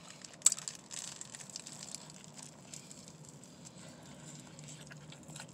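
Faint chewing of a mouthful of sub sandwich: small wet mouth clicks and crackles, with one sharper click about half a second in.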